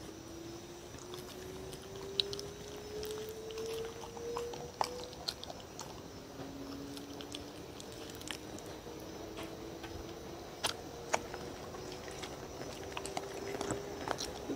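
A dog eating black-bean-sauce noodles from a wooden bowl: scattered small clicks and smacks of chewing and licking. Under them, a faint hum rises slowly in pitch, twice over.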